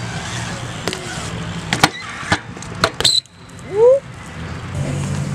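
BMX bike rolling over a concrete skatepark bowl: a steady tyre roll with several sharp clacks of the bike hitting the concrete between about one and three seconds in, then a short loud rising squeal just before four seconds in.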